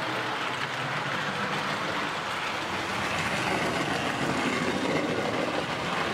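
American Flyer model trains running past close by, a steady noise of wheels on track and motors that grows a little louder in the second half.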